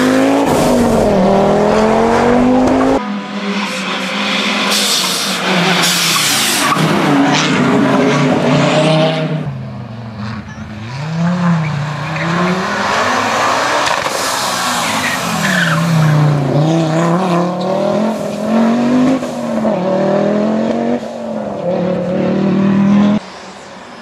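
Audi Quattro rally car's turbocharged five-cylinder engine revving hard, its pitch climbing and dropping again and again through throttle lifts and gear changes. The sound jumps abruptly between separate passes a few times.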